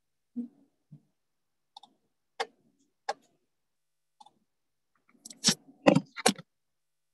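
Computer mouse clicking at irregular intervals, with a louder quick cluster of clicks and knocks about five to six seconds in.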